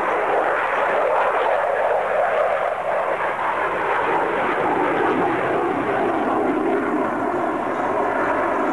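Sukhoi Su-47 Berkut jet fighter in flight, its twin turbofan engines making a steady, unbroken jet noise.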